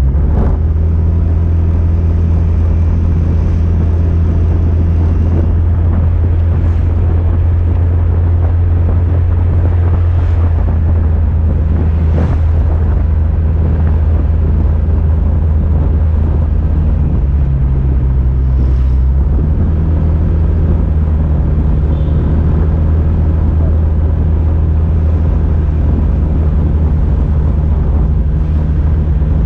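Motorbike engine running steadily at cruising speed, with rumble from wind and road, heard from the moving bike itself. The engine note shifts a little about two-thirds of the way through, as the speed changes.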